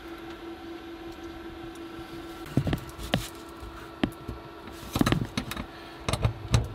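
Clicks and knocks as a metal mounting bracket is handled against the wall, then short bursts of a cordless drill driving screws into it, about five seconds in and again near the end. A steady hum runs underneath until about five seconds in.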